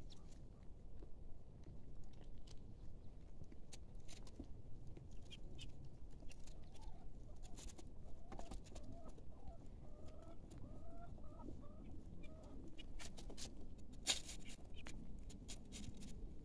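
Beldi village chickens clucking, a run of short rising calls in the middle of the stretch, over scattered light clicks and a low rumble.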